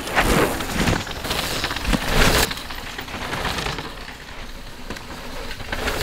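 Bicycle tyres rolling over dirt and gravel: a steady crunching rush, with the loudest knocks in the first two and a half seconds, then softer.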